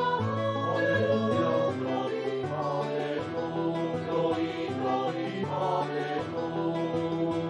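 Music: a sacred choral passage, with a choir of virtual (sampled) voices holding sustained chords over instrumental accompaniment. The chords change about once a second.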